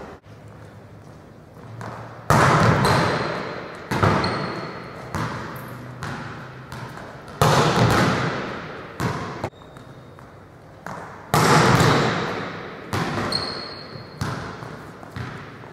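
Volleyballs being struck and bouncing on a hardwood gym floor: a string of sharp smacks a second or two apart, each ringing out in a long echo through the large hall.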